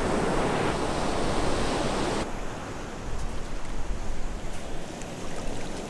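Steady rushing outdoor noise with a strong low rumble, which changes abruptly about two seconds in.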